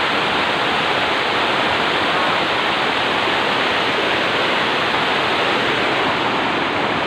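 Water of a small stone-walled river rushing steadily, its current running fast.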